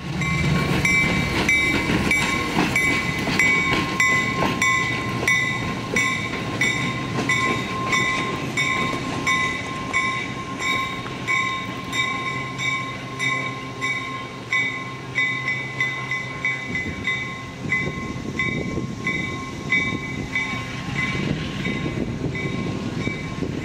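EMD SW7 diesel switcher's locomotive bell ringing at an even pace, about three strokes every two seconds, over the low running of its 12-cylinder 567 diesel as the locomotive moves slowly along the track.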